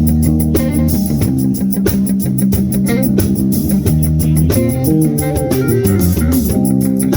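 Live rock band playing: electric guitar and bass guitar over a fast, steady high ticking beat, with sliding guitar notes about halfway through.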